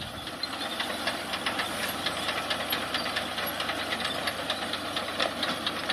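Tractor-drawn reaper binder cutting wheat: the tractor's engine running steadily under a fast, continuous clatter from the cutting and binding mechanism.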